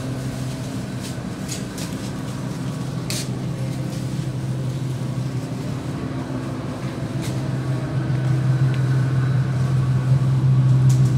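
Steady low mechanical hum of a supermarket's machinery, growing louder over the last few seconds, with a few faint clicks.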